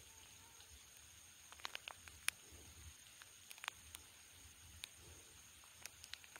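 Near silence with a few faint, irregular clicks from handling, the sharpest about two seconds in, over a faint steady high-pitched tone.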